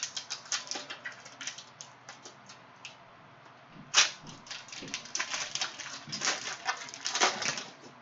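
Cellophane wrapper of a Panini Prizm basketball cello pack crinkling and tearing as it is ripped open by hand: a run of sharp crackles, thickest in the second half, with the loudest rip about four seconds in.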